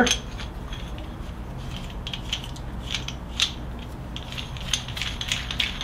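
Small steel parts of a harmonic balancer installer tool clicking and scraping lightly and irregularly as a short threaded piece is spun on by hand, over a low steady hum.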